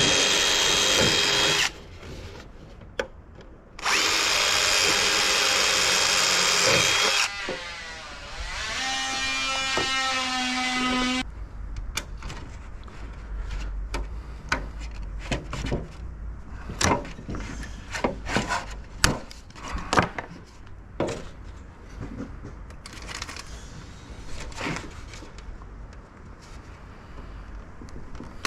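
Power drill running in two loud steady bursts, then a longer run whose pitch wavers as it slows, followed by many scattered sharp clicks and knocks of hand work on the piece.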